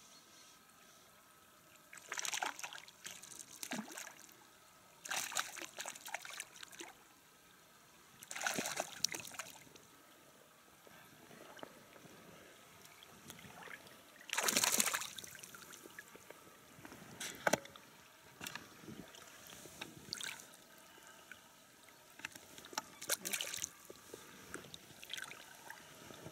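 Hooked fish splashing at the water's surface beside a boat as it is played in on a fly rod, in separate bursts every few seconds, the loudest about fifteen seconds in.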